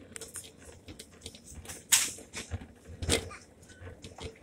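Metal shopping cart rattling and clattering as it is pushed across a store floor: irregular clicks and knocks, with sharper knocks about two and three seconds in.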